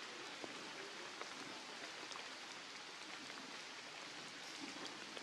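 Steady outdoor background hiss with faint, scattered ticks and patters.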